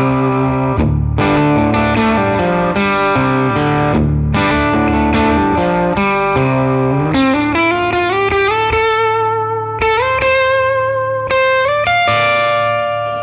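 Background music: distorted electric guitar playing, its notes climbing in pitch through the second half.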